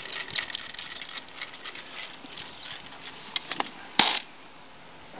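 Fishing reel being cranked in, a rapid run of small clicks and ticks, thinning out after a couple of seconds, then one sharp loud click about four seconds in.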